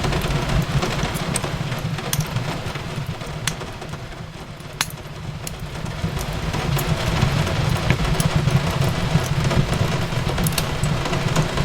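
Fireplace crackling: scattered sharp pops and snaps over a steady low rumble and hiss, with the soft wash of rain on a window. One sharper pop stands out about five seconds in, while the overall sound dips slightly before swelling back.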